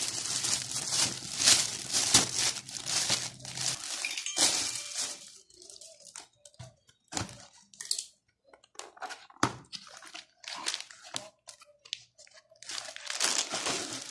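Shiny metallic gift wrap crinkling and tearing as a present is unwrapped: dense crinkling for the first four seconds or so, then scattered crackles and light taps, with another burst of crinkling near the end.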